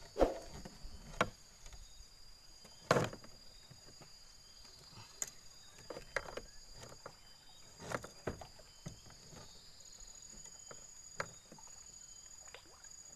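Insects droning steadily at two high pitches, with scattered clicks and knocks, the loudest just after the start and about three seconds in.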